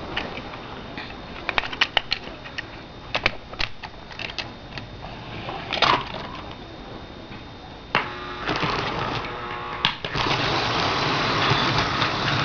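Light plastic clicks and clatter of HO-scale model railroad cars being handled and set onto the track. From about eight seconds in comes a louder, steady mechanical whirring rattle.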